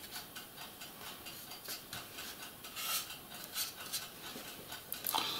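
Fine paintbrush dabbing and brushing paint onto a plastic model hull: faint, quick scratchy strokes a few times a second, a little louder near the end.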